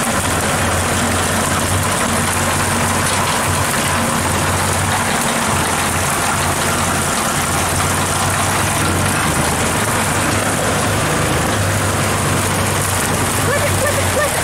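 John Deere tractor engines running at a steady working speed while driving through the field, a constant low drone.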